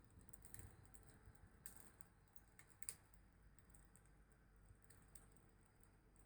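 Wood fire crackling faintly: scattered small snaps and pops, with one sharper pop about three seconds in.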